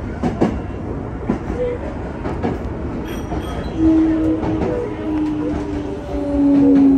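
5300-series electric train running slowly along a station platform, its wheels clacking over rail joints and points. From about four seconds in, the traction motors' whine comes in as a steady tone that slowly falls in pitch as the train slows under braking.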